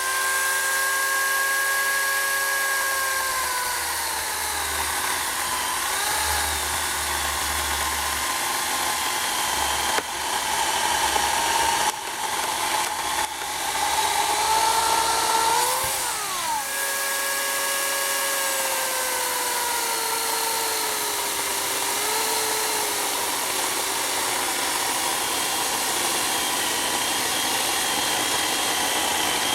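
Portland 14-inch electric chainsaw running and cutting apple wood: a steady motor whine whose pitch sags as the chain bites into the wood, climbs back about halfway through, then sags again under the next cut.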